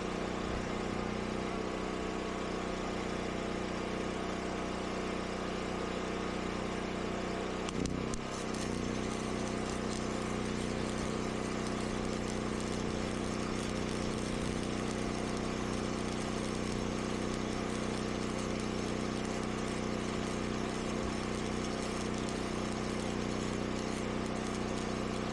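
Predator 10,000-watt portable generator engine running steadily. About eight seconds in, its tone briefly shifts and then settles into a steady hum, as the generator catches up with the welder's load switching on and off.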